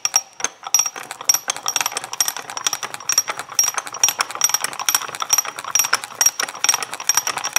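Ratchet mechanism of a restored circa-1925 W.E. Pratt Model T jack being worked by its handle: the pawl (dog) clicks rapidly over the gear teeth, a steady metallic clicking with a faint ring.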